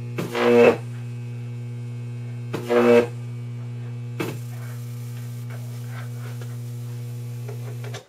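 Deshunted microwave oven transformer with capacitors, energised and giving a steady mains hum, with two loud bursts of high-voltage arcing about half a second each in the first three seconds and a sharp snap about four seconds in. After that comes faint crackling, like a taser sparking inside the transformer, which the owner takes for sparking from the secondary winding to the core, the kind of little sparks that lead to arc-overs.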